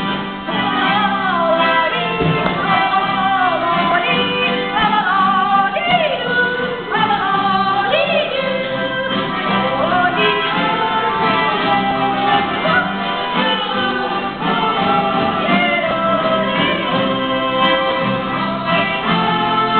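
A song playing: a singing voice sliding up and down between notes over steady instrumental backing.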